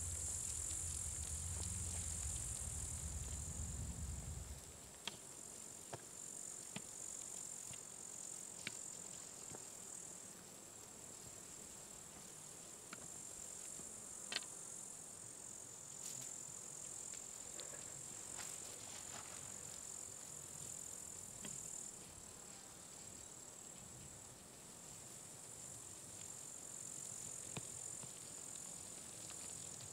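Steady, high-pitched chirring of an insect chorus, crickets or similar. A low rumble is heard for the first four seconds or so, and a few faint clicks are scattered through.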